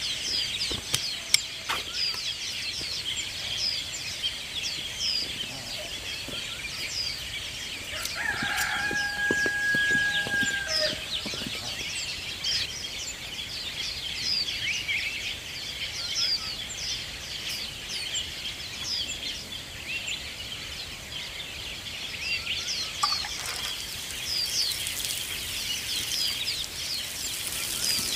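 Small birds chirping continuously, with a rooster crowing once, a long held call, about eight seconds in. A garden hoe strikes the soil a few times near the start, and near the end water sprinkles from a watering can's rose onto the soil.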